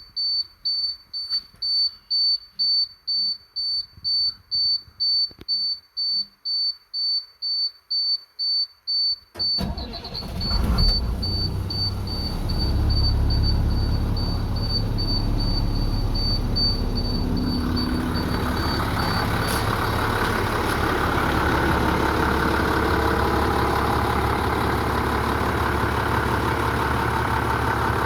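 A high dashboard warning buzzer beeping about twice a second with the key on; about nine seconds in, the 2001 Blue Bird International school bus's diesel engine cranks, catches and settles into a steady idle while the beeping fades out.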